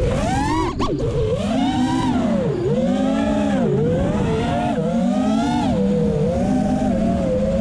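FPV racing quadcopter's brushless motors and propellers whining in fast, low flight, several pitches swooping up and down together with each throttle change, with a sharp dip and climb about a second in. Heard through the camera mounted on the quad.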